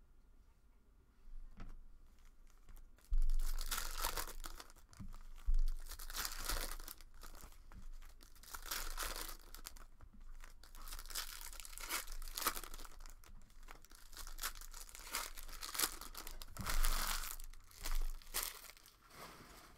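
Foil trading-card packs being torn open and their wrappers crinkled while the cards are handled, with a few low thumps from handling.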